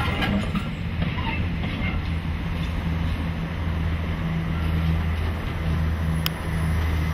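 Class 56 diesel locomotive's 16-cylinder Ruston-Paxman engine running with a steady low drone as it moves off hauling a coach, with wheel and rail noise from the train; one sharp click about six seconds in.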